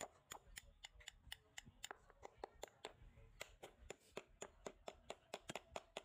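Rapid hammer blows on a rusty steel bolt resting on a wooden stump, about four sharp strikes a second, knocking the rust scale loose.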